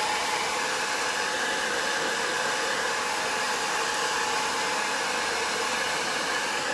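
Handheld hair dryer running steadily, a constant whine over the rush of air, blowing hot air onto clear plastic wrap around a gift basket to shrink it.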